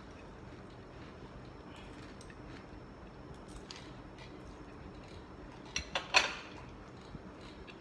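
Eating utensils clicking against a dish during a meal: faint small taps, then two sharp clinks close together about six seconds in.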